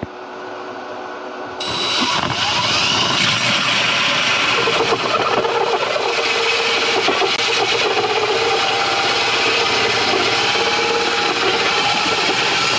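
Cordless drill driving a hole saw through a wooden panel. A quieter whir at first, then from about a second and a half in a loud, steady cutting noise that carries on.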